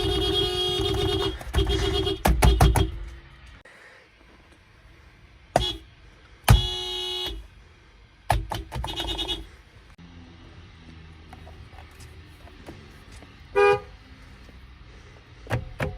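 Toyota car horns honking in a series of toots and blasts. A long blast opens, then another follows about a second and a half in. There is a short toot near the middle, a long blast soon after, a run of quick toots a little later, and one more short toot near the end.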